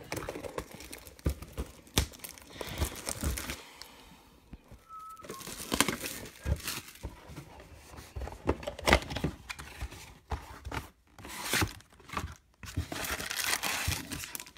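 Plastic wrapping on a cardboard trading-card box being slit and pulled off, crinkling and tearing in irregular bursts, with light taps and knocks as the box is handled.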